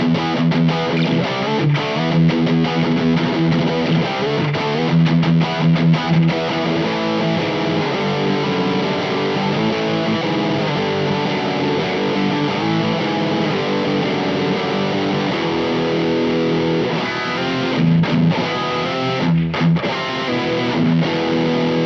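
Electric guitar played through a Teisco distortion pedal with the gain turned up high. Choppy distorted chords for the first few seconds, then longer held chords that ring out, with a few short stabs near the end.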